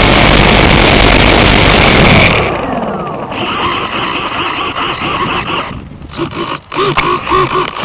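Model plane's electric motor and propeller (E-max 822 brushless motor, 9x5 prop) run at full throttle, a loud, steady whine with a rushing noise, heard through an onboard camera mounted close to it. About two seconds in it is throttled back with a falling pitch, then keeps running lower with an uneven, wavering whine.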